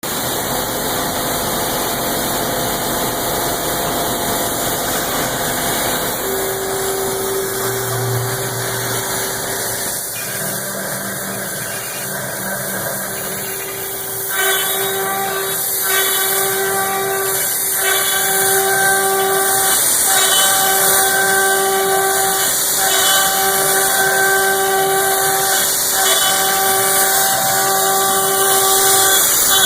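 A 4 hp HSD spindle on a CNC router milling aluminum: a steady high-speed whine over a hiss. About halfway in the cutting sound grows louder and drops out briefly every couple of seconds.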